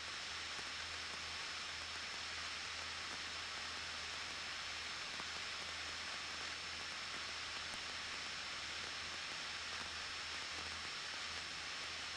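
Steady faint hiss with a thin high-pitched tone and a low hum: the idle audio feed of a light aircraft's headset intercom while nobody talks, with the engine itself hardly heard.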